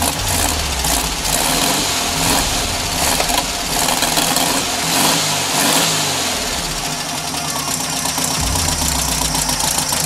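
A 1972 Volkswagen Super Beetle's air-cooled flat-four engine running just after catching, its speed rising and falling. It has just been fired up after sitting a long time, on a shot of starting fluid in the carburettor and old gas.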